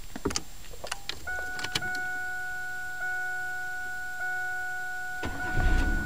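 Clicks, then a steady electronic warning tone. Near the end the 1998 Camaro's 3.8-litre 3800 V6 cranks and fires up from cold.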